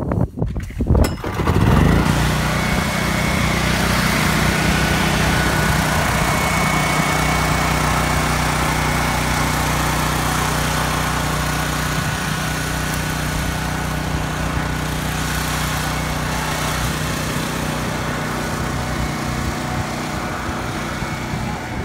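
Small portable generator engine starting up about two seconds in, then running steadily.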